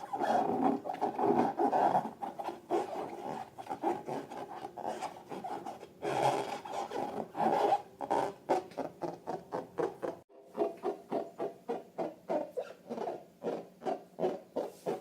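Slime being squished and worked by hand: rapid wet clicking and squelching, with an abrupt break about ten seconds in, after which the squishes come in a steady rhythm of about three a second.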